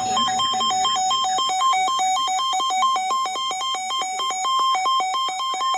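Loud electronic beeping: pure synthesized tones that jump back and forth between two pitches several times a second in an uneven rhythm, with a click at each change.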